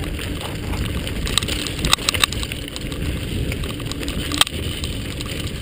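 Mountain bike rolling fast down a dirt singletrack: a steady rumble of wind on the microphone and tyres on dirt, with the bike rattling and clicking sharply over bumps several times.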